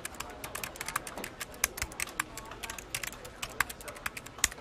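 Typing sound effect: rapid, irregular keyboard key clicks, several a second, as text is typed out.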